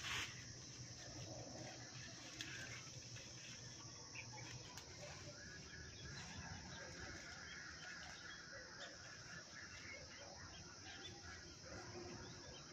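Steady high-pitched insect drone, with soft rustling of leafy branches being handled and a few light clicks; a brief louder rustle right at the start.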